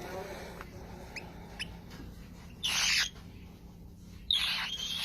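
Pet parrot letting out two loud, harsh screeches about a second and a half apart, preceded by a couple of short faint chirps.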